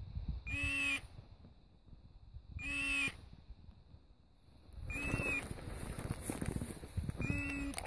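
A short, high call repeating about every two and a quarter seconds, identical each time. From about five seconds in, footsteps swish through dry grass.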